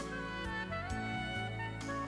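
Background music: a melody over a bass line, with a steady beat.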